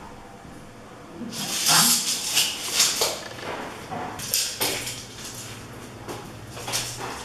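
A steel tape measure being drawn out and handled against a wall: a series of short scraping and rustling noises, the loudest a couple of seconds in.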